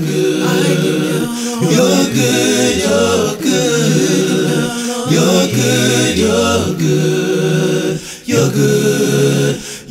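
A cappella group of boys singing in harmony without instruments, a low bass voice line sustaining notes beneath the upper voices, with a short break between phrases near the end.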